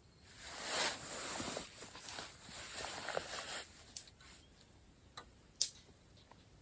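Rustling and handling noise for about three seconds, then a few sharp clicks.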